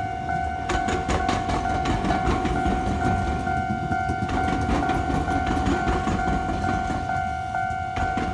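Railway level-crossing warning bell ringing steadily while a train rumbles across, its wheels clacking over the rail gaps of a diamond crossing where railway and tram tracks cross.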